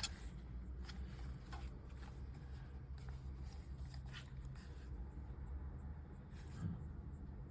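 Faint handling noise as a camcorder is turned over in the hands: light rubbing and a few small clicks over a low steady hum.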